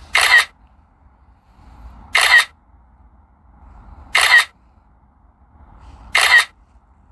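A camera-shutter click repeating every two seconds, four times, as in interval photo shooting.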